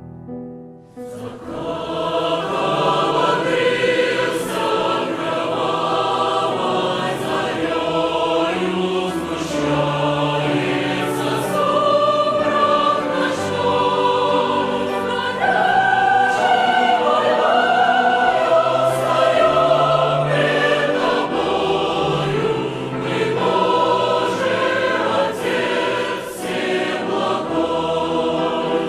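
Choir singing a slow hymn, coming in about a second in.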